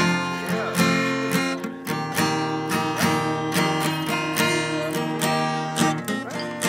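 Acoustic guitar strummed in a steady rhythm, several strokes a second, with sustained chords.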